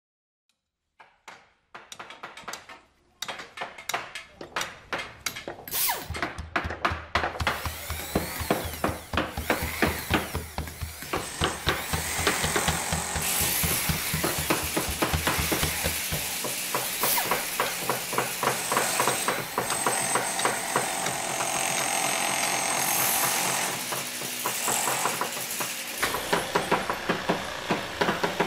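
Background music with a steady beat, fading in over the first few seconds.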